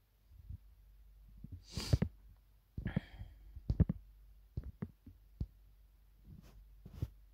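A few light clicks and knocks, with two short rushing noises about two and three seconds in.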